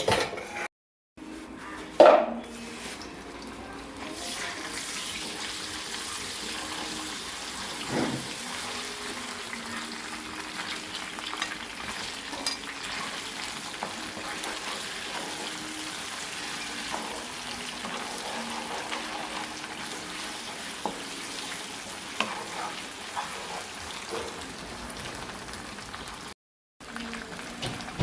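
Food sizzling steadily as it fries in hot oil in a pan, with a few sharp utensil knocks against the pan.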